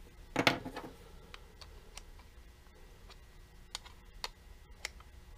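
A metal wrench picked up off the bench with a clink about half a second in, then sparse, irregular clicks of a ratcheting combination wrench tightening the small nuts that clamp a Weller soldering gun's tip.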